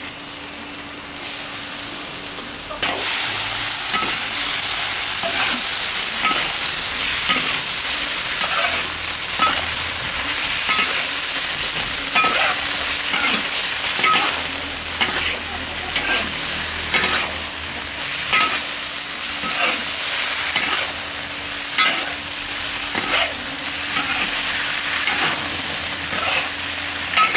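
Tofu sizzling in sauce in a large iron wok, with a spatula scraping and stirring it in many short strokes. The sizzle is quieter for the first few seconds and grows fuller from about three seconds in.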